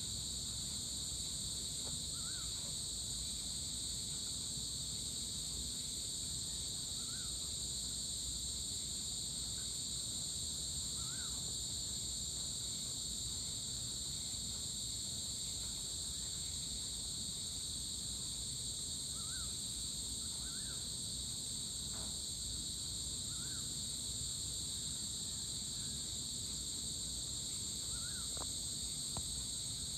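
Steady insect chorus, a continuous high buzz in two bands, with a few faint short bird chirps scattered through it over a low steady rumble.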